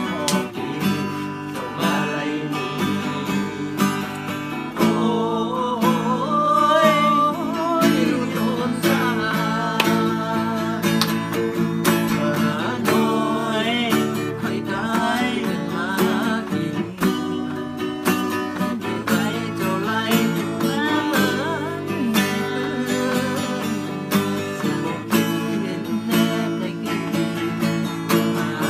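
Acoustic guitar strummed, with a man singing over it from about five seconds in.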